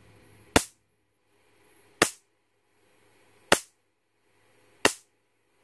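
High-voltage sparks snapping across a gap of about 3 mm between the two output leads of a bug zapper racket's voltage-tripler circuit. There are four sharp cracks, about one every second and a half, as the storage capacitor charges up and then discharges through the gap.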